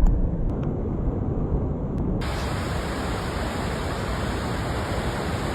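Steady rushing of floodwater, a dense hiss that turns suddenly brighter and fuller about two seconds in.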